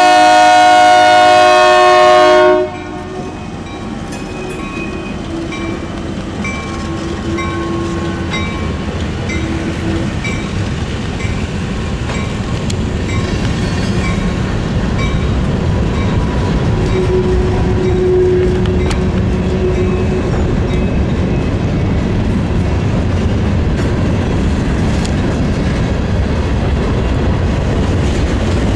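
Diesel freight train of EMD locomotives, an SW1500 and a GP9: the horn sounds a loud chord that cuts off about two and a half seconds in, then the train passes with a steady rumble of engines and wheels on the rails that grows louder. A faint bell dings about once a second for several seconds after the horn.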